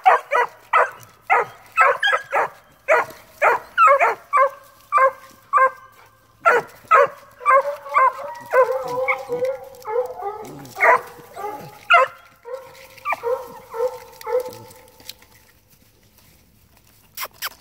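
Several hound pups barking treed at a raccoon up a pine, a fast run of short, sharp barks at about two a second. Several voices overlap about halfway through, then the barking dies away, and a few sharp clicks follow near the end.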